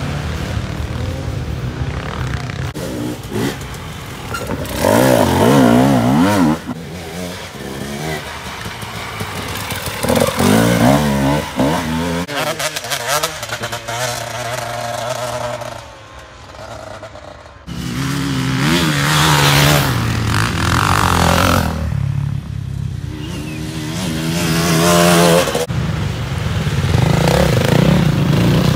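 Enduro dirt bike engines revving, the pitch climbing and dropping again several times as the throttle is worked, with a short lull a little past halfway.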